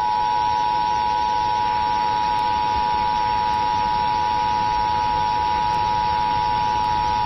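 Emergency Alert System two-tone attention signal: two steady tones near 853 Hz and 960 Hz sounding together without a break, received over FM broadcast radio with a faint hiss beneath. It announces an EAS activation, here the required monthly test.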